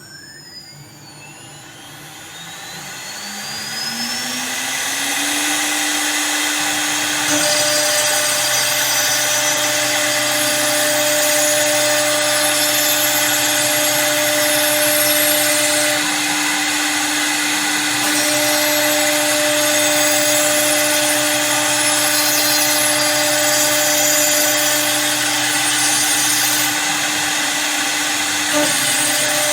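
CNC wood lathe starting up, its motor whine rising in pitch over the first five seconds, then running steadily as the rotary cutter routes spiral grooves into a wooden handle. A higher steady tone switches on and off a few times.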